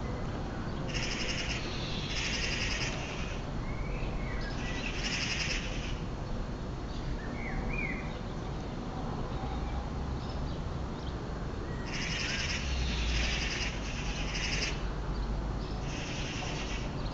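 A bird calling in short buzzy trills, in groups of two or three, with a few brief chirps in between, over a steady low background rumble.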